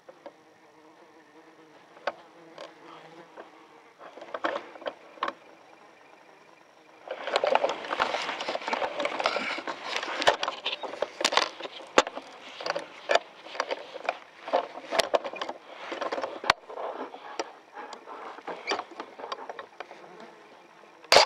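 Faint steady buzz with occasional small clicks, then from about seven seconds in a long stretch of louder rustling and handling noise full of small knocks as the airsoft rifle with its scope camera is moved about. Right at the end a single sharp click, the upgraded airsoft sniper rifle firing a shot.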